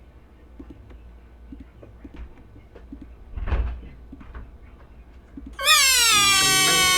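Faint small clicks and shuffles, then about five and a half seconds in a loud, high, pitch-shifted cartoon crying wail breaks in. It glides down and then holds steady: a cartoon piglet's cry warped by stacked editing effects.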